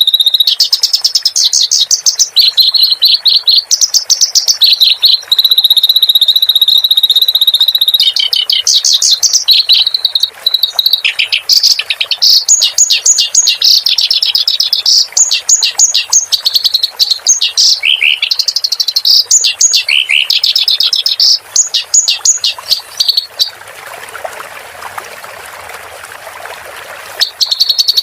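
Kerak basi songbird singing a fast, loud, chattering song of rapid repeated notes and trills. About three-quarters of the way through the song pauses for a few seconds and a steady rushing water sound takes its place, then the song starts again near the end.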